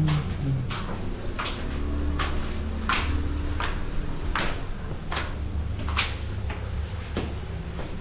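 Footsteps of two people climbing a staircase at an even pace, about three steps every two seconds, over a low rumble of handling noise from the body-worn camera.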